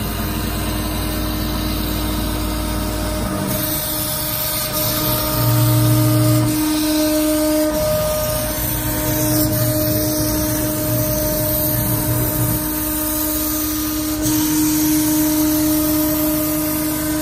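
CNC router spindle running with its bit milling an acrylic sheet: a steady whine over the hiss of the cut.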